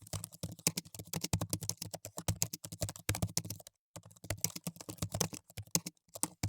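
Computer keyboard typing: rapid, irregular key clicks, with a brief pause about four seconds in.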